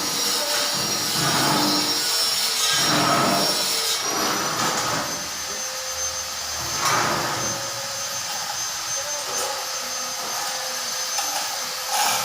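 Workshop machinery running with a steady high whine, and rasping strokes that come back every two seconds or so.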